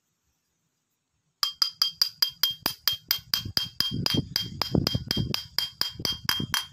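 Quick, even hammer taps on metal, about five a second with a ringing note on each, driving a rocker-arm shaft into the bore of a Yamaha Mio cylinder head. The tapping starts about a second and a half in, with heavier thuds in the second half.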